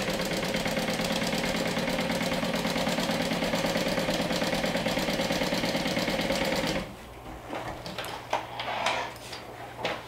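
Industrial single-needle straight-stitch sewing machine running at a steady speed as it sews a zipper to fabric lining, stopping abruptly about seven seconds in. A few light clicks follow.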